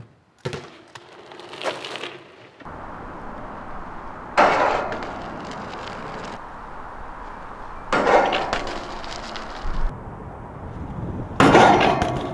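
BMX bike hits and scrapes: a couple of sharp knocks near the start, then three loud sudden scraping crashes about four, eight and eleven and a half seconds in, each dying away over about a second, over a steady rolling noise.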